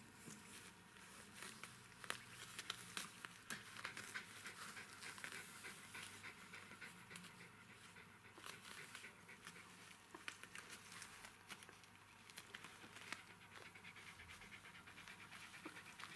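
Faint, soft panting of a Jack Russell Terrier, with small irregular clicks and rustles throughout.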